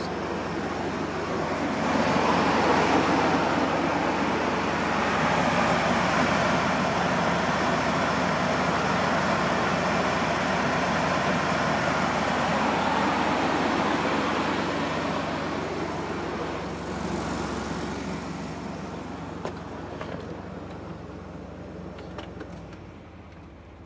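Chevrolet Astro van engine idling, heard up close at the engine bay. Its steady running noise grows louder about two seconds in and fades gradually in the last third.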